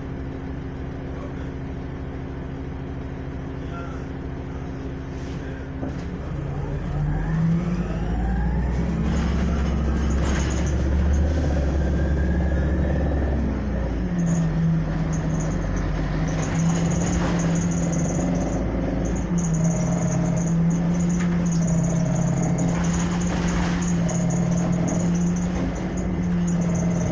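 City transit bus heard from inside the passenger cabin. Its engine runs steadily low for about six seconds, then revs up with rising pitch as the bus pulls away and accelerates. The pitch shifts about fourteen seconds in, and the bus settles into a steady run with a faint high whine.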